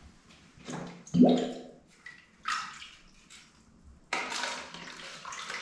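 Water poured from a plastic cup into another plastic cup, starting about four seconds in as a steady splashing trickle. Before it come a few short splashes and a knock, the loudest about a second in.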